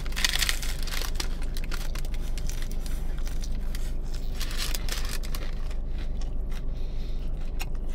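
Paper food wrapper crinkling and rustling in short clusters while a Crunchwrap is bitten and chewed, over a steady low hum in the car cabin.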